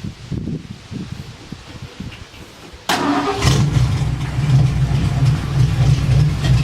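A vehicle engine cranked by the starter motor in quick rhythmic turns for about three seconds. It then catches and keeps running, a much louder, steady low rumble.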